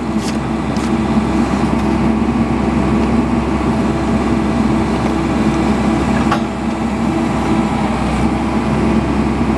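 Excavator's diesel engine running steadily while it lowers a concrete septic tank on a chain, with a single sharp knock about six seconds in.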